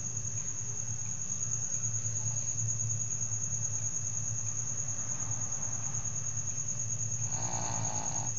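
A cricket chirping in a steady, high, finely pulsed trill over a steady low hum, with a brief rougher sound a little before the end.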